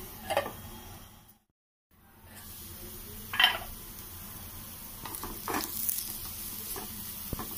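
Amla (Indian gooseberry) pieces sizzling in ghee in a steel kadai on low flame as they cook down soft, with a steel lid lifted off at the start and a wooden spatula scraping and stirring the pieces. The sizzle cuts out for about half a second about a second and a half in.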